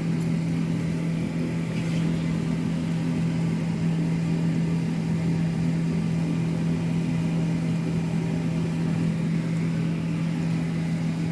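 Steady, unchanging machine hum of a running kitchen appliance, with one low, even drone.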